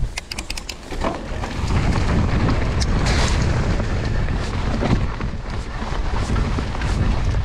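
Wind buffeting the GoPro's microphone, with tyre and trail rumble from a mountain bike being ridden, building about a second in and then holding steady. A quick run of sharp clicks comes at the very start.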